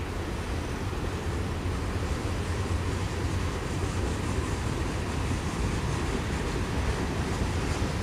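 Freight cars rolling past, a steady low rumble of steel wheels on rail.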